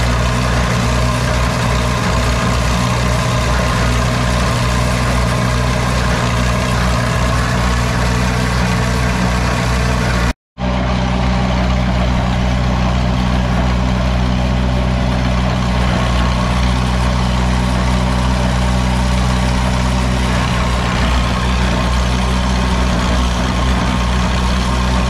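Case 830 tractor running a Gehl forage blower through its PTO while chopped sorghum-sudangrass is fed in from a forage wagon: a steady engine and blower drone that cuts out briefly about ten seconds in.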